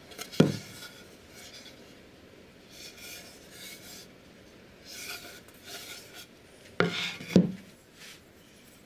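A plywood disc being handled on a wooden tabletop: a sharp wooden knock about half a second in, soft rubbing and sliding of wood on wood, then two more knocks close together near the end as it is set down.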